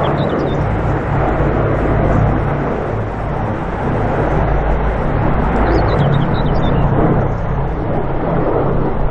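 Four Wright Cyclone nine-cylinder radial engines of a Boeing B-17 Flying Fortress droning as the bomber flies past low, a steady deep multi-engine hum with propeller noise.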